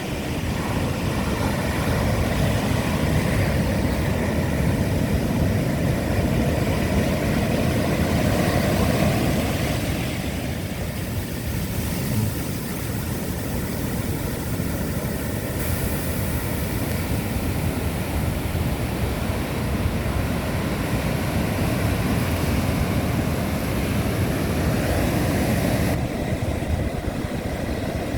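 Strong wind buffeting the microphone over the rumble of Atlantic surf breaking on the shore, a loud, steady low roar that shifts in strength a couple of times.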